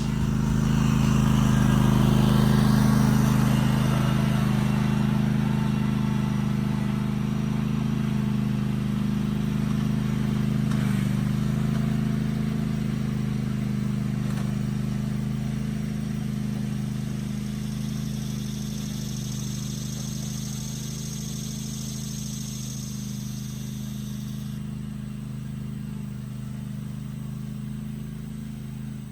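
Lawn mower engine running steadily, its hum slowly fading.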